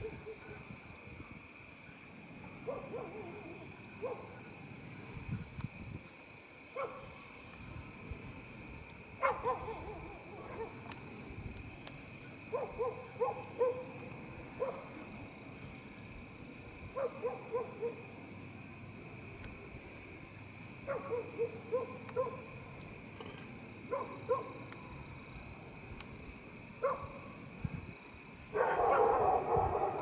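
Night-time outdoor chorus: insects trilling steadily, one of them in regular pulses, under short low animal calls that come in quick groups of two to four every few seconds, with a denser run of calls near the end.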